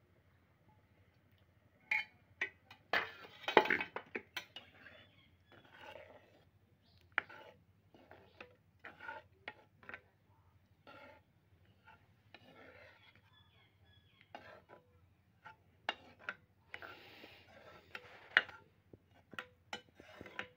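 Metal perforated spoon stirring rajma curry in a metal kadhai, with irregular clinks and knocks against the pan and short scrapes.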